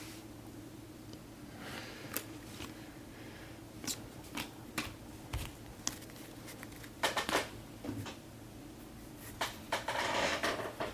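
Faint handling of trading cards and pack wrappers: scattered light clicks and short rustles at irregular times, with a longer rustle near the end.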